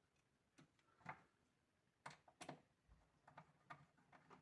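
Faint, scattered clicks and light taps as a small screw is started by hand into the metal of a telescopic drawer slide.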